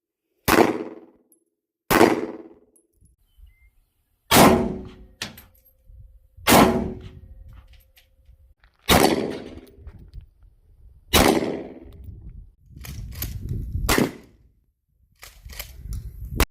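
Gunshots, each followed by the ringing clang of a struck steel target that fades over about a second. There are about seven shots a couple of seconds apart, with a few quicker, lighter cracks near the end.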